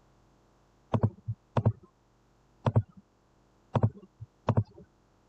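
Computer mouse clicking: five sharp clicks spaced about a second apart, each a quick double tick.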